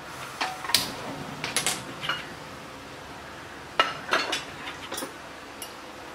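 Metal clinks and knocks of a utensil against an aluminium cooking pot, in a few short clusters.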